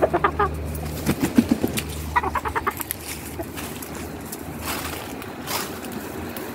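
Chickens clucking: a quick run of short notes at the start and another about two seconds in, with lower clucks between them. A few brief rustles follow later.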